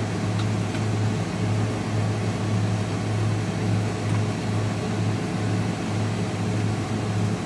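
Steady low hum of a semi-truck's idling diesel engine, heard from inside the sleeper cab.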